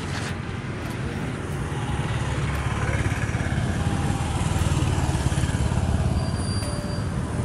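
Road traffic passing on the bridge: a low vehicle rumble that builds through the middle and eases near the end.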